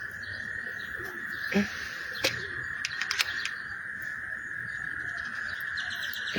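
A dense chorus of frogs calling together, a steady unbroken drone, with a few sharp clicks between about a second and a half and three and a half seconds in.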